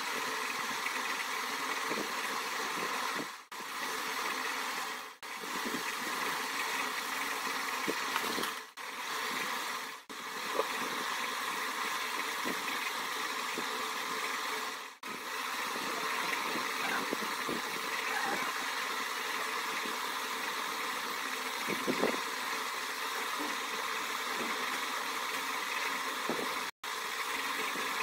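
A steady hiss with a faint hum, broken by about six brief dropouts.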